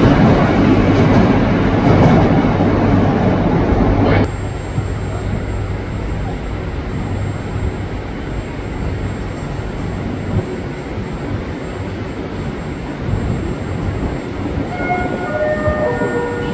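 A metro train pulling out of the platform with a loud, dense rumble. A cut about four seconds in leaves a quieter steady rumble as an 81-760 'Oka' metro train approaches from the tunnel. Near the end comes a short run of descending beeping tones.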